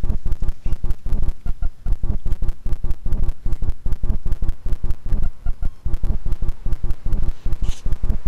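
Loud, rough rumbling noise broken into rapid, uneven thumps, typical of wind buffeting a trail camera's microphone, with a brief higher hiss near the end.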